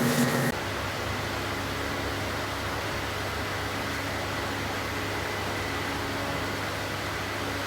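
A steady mechanical hum with an even hiss, like a fan running. A louder sound with several steady tones cuts off abruptly about half a second in.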